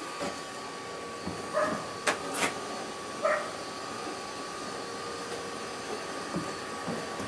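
A gas burner being lit: a few sharp igniter clicks a couple of seconds in, with a few short pitched sounds between them, over a steady faint hum.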